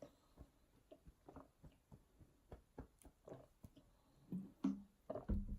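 A person gulping a carbonated soft drink, a run of short swallows about three a second, faint, with a few louder gulps near the end.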